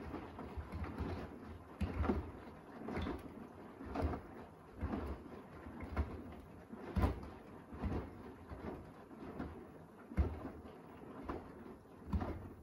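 Beko WDR7543121S washer-dryer in its wash phase, the drum tumbling shirts through soapy water: the laundry lifts and drops with a splash and thud about once a second. The drum stops near the end.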